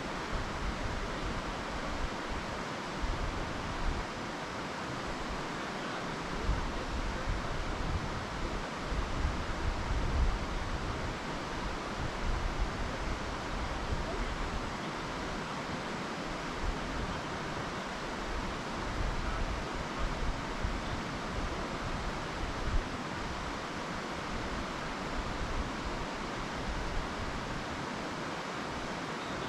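Wind buffeting the microphone: a steady hiss with irregular low, rumbling gusts, strongest a third of the way in.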